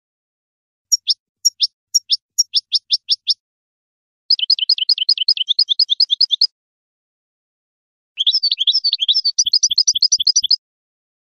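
European goldfinch singing: three bursts of quick, high twittering. The first is a run of about ten falling notes, and the two after it are faster, rippling trills, with short gaps between the bursts.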